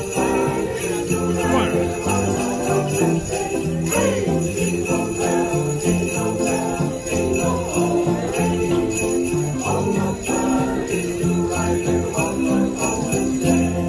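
A street choir singing a Christmas song to a conductor, with a ring of sleigh bells jingling along.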